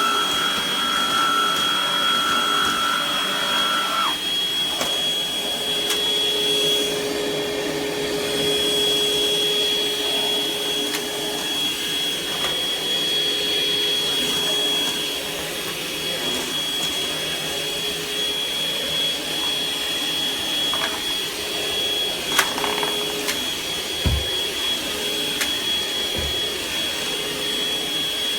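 Hoover ONEPWR Evolve Pet Elite cordless stick vacuum running steadily with a high whine. A mid-pitched tone drops out about four seconds in, a lower hum takes over, and there are a few brief knocks near the end.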